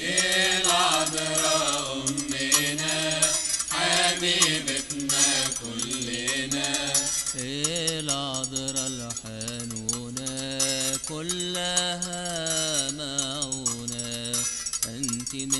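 Music of an Arabic Coptic hymn: a melody line that glides and bends in phrases a few seconds long, over light percussion.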